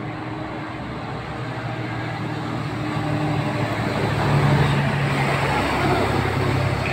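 Diesel engine of a Mitsubishi Fuso heavy truck pulling up an incline, growing louder as the truck approaches and loudest as it passes close by about four to five seconds in.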